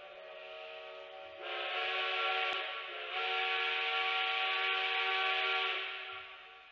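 Chime steam whistle of a K36 narrow-gauge 2-8-2 steam locomotive sounding a long chord as the train departs. It swells louder about a second and a half in, dips briefly halfway, then fades out near the end.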